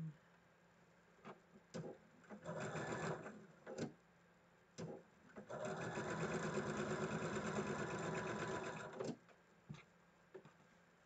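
Electric sewing machine stitching seams in quilt-block squares, in two runs: a short burst about two and a half seconds in, then a longer steady run of about three and a half seconds that stops sharply. A few light clicks come between the runs and after.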